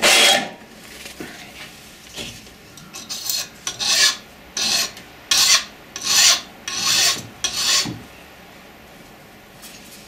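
A hand file rasping on a thin sheet-metal shim fitted to a biscuit joiner's guide plate, in a run of short strokes that stop about eight seconds in. The shim is being filed thinner so the guide will slide smoothly.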